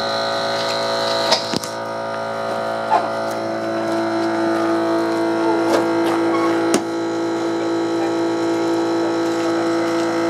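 A motor running with a steady buzzing hum, its note filling out a little about four seconds in, with a few sharp clicks and knocks over it.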